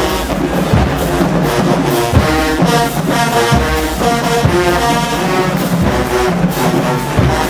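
Marching band playing loudly: held brass chords with low drum strikes underneath.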